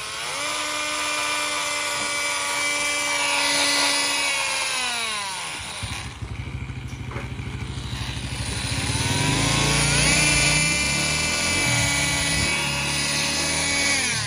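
Makita 10.8 V brushless cordless oscillating multi-tool running with a steady whine, run twice: it spins up, holds, and winds down about five seconds in, then spins up again, climbing gradually to speed, and winds down near the end. It runs normally, in working order.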